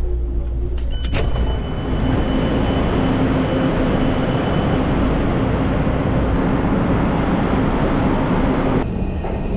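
Steady running noise of a moving vehicle, a dense rumble with a constant low hum, changing abruptly about a second in and again near the end.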